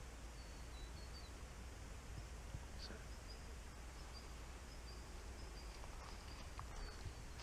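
Quiet bush ambience: a steady background hiss with a string of faint, short, high chirps running through it.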